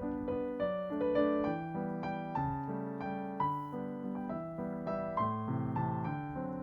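Soft background music: a gentle piano melody of steady, evenly paced notes.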